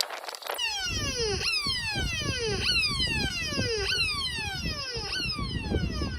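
Electronic fire-alarm siren from a fire alarm signal box, starting about half a second in. It repeats a falling tone: each sweep glides from high to low and restarts roughly every second and a quarter, with a low rumble underneath.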